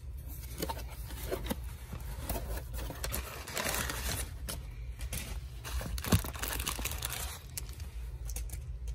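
Brown kraft packing paper crinkling and rustling as it is handled and lifted out of a cardboard shipping box, with cardboard scraping and a sharp knock about six seconds in.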